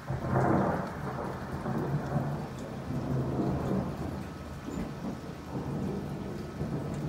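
Thunder from a nearby lightning strike: a sudden loud crack just after the start, then a long rolling rumble that swells and fades in waves.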